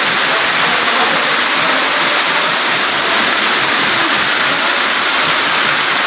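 Small waterfall pouring over a rock ledge: a loud, steady rush of water.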